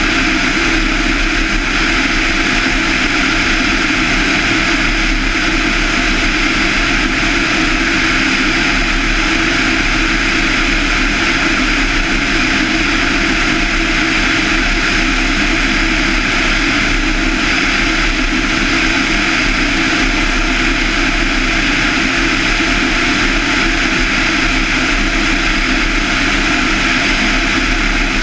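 Van's RV-7's 200 hp Lycoming IO-360-A1A four-cylinder engine and propeller running steadily in flight, a constant loud drone that holds one level throughout.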